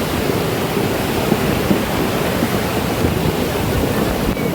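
Flood-swollen river rushing steadily, an even, unbroken wash of water noise.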